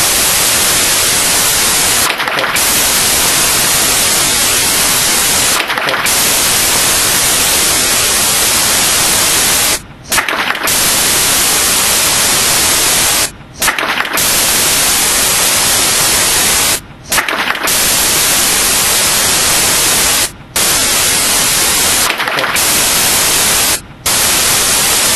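Loud, steady static hiss that drops out briefly about every three and a half seconds, the sign of a corrupted, looping audio track.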